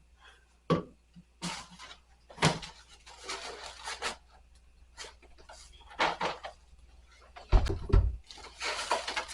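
Things being moved about on a wooden kitchen cabinet shelf: scattered knocks and clatters with rubbing and rustling between them, and one heavy thump about eight seconds in, the loudest sound.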